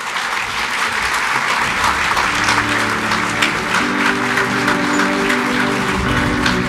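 Audience applauding in a steady round of clapping. Sustained musical chords fade in under the applause about two seconds in.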